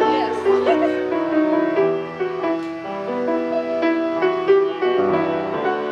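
Grand piano playing a melody over chords, with notes held and changing every half second to a second.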